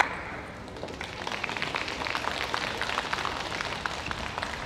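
Spectators applauding a won point in a table tennis hall, picking up about a second in and thinning out near the end. A single sharp ball click opens it.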